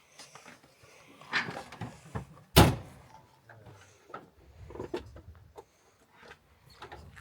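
Scattered clicks and knocks from a side-by-side being unstrapped and unloaded off a trailer, with one loud slam about two and a half seconds in.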